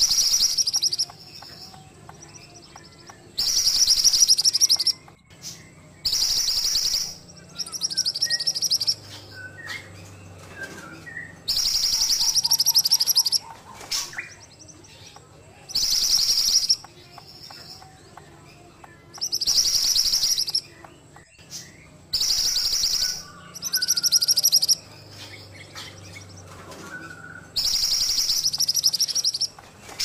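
Caged mantenan songbird in full song: about ten loud, high, rapidly trilled phrases of a second or two each, repeated every few seconds, with soft chirps between them.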